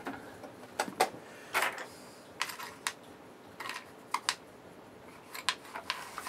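Irregular clicks and light taps of a cover being fitted and handled on the top deck of a 1968 Shibaden SV-700 reel-to-reel video tape recorder, about a dozen in all.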